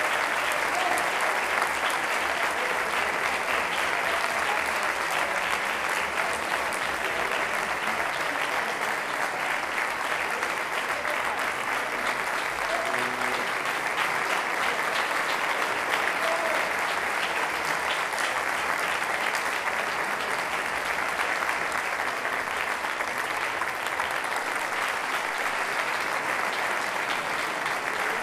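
Long, steady applause from a concert-hall crowd.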